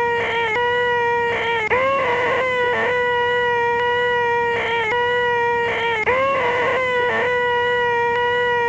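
A man's voice making a continuous high-pitched 'eeeeh' drone held on one steady pitch, looped over and over, with a brief break under two seconds in and again about six seconds in.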